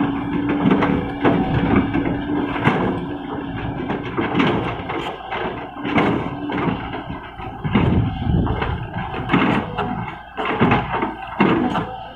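Excavator at work: a steady engine hum that drops away about halfway through, over many irregular knocks, clanks and scrapes.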